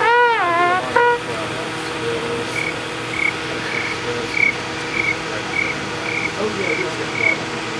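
A man's mouth sound effect: a voiced call whose pitch swoops up and back down in the first second, followed by a long run of short, high, evenly spaced chirps, about one and a half a second.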